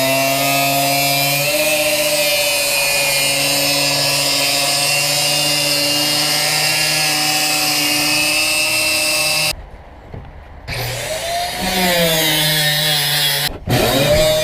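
Electric power saw cutting through a vintage travel trailer's metal-skinned wall, the motor running at a steady pitch with a high cutting hiss. About nine and a half seconds in it stops for about a second, then spins back up, and it cuts out briefly again near the end.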